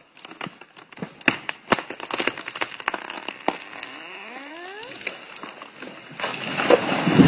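Irregular cracks and snaps of wood being cut, with a short rising creak about four seconds in and a louder rush of noise near the end.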